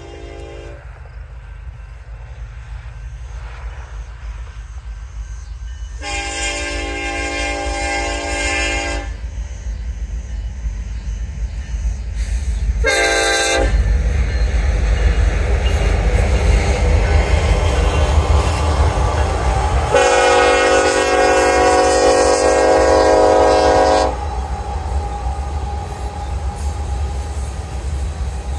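Union Pacific diesel freight locomotives' horn sounding a long blast, a short one, then another long one, the pattern of a grade-crossing signal, over the low rumble of the train. The rumble grows as the locomotives close in, turns loud about halfway through as they pass, and goes on as the grain hopper cars roll by.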